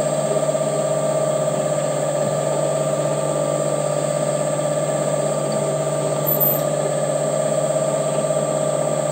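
WM210V bench lathe running at steady speed, its spindle turning a steel rod clamped in the chuck jaws for a runout check with a dial indicator: an even motor and gear whine made of several steady tones, including a thin high whistle.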